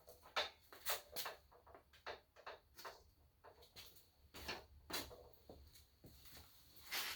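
Scattered light knocks and clicks from a Ridgid compact miter saw stand being handled and adjusted, its outrigger leg worked as the stand settles on its knob and legs; the loudest knock comes near the end.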